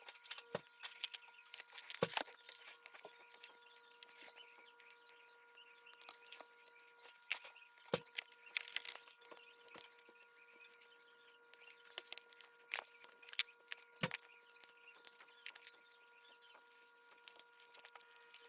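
Irregular small clicks and taps, with a few sharper knocks spread through, over a faint steady hum.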